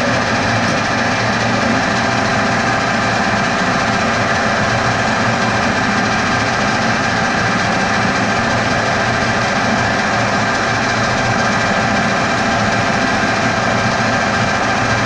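A machine running steadily: a constant hum with several steady whining tones layered over it, unchanging throughout.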